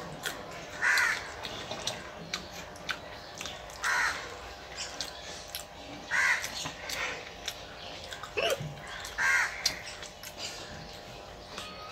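A crow cawing, single caws a few seconds apart, over soft clicks and crunches of someone chewing green chillies.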